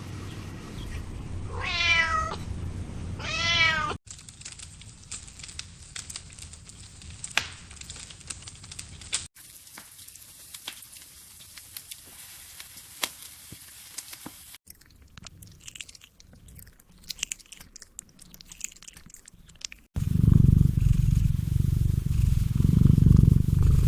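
A cat meows twice, each call about a second long. Several seconds of scattered crackling clicks follow, then a loud, low cat purr starts near the end.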